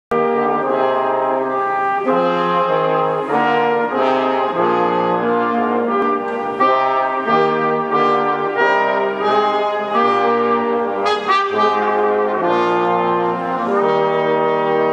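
Brass instruments playing music in several parts, chords held and changing about every second.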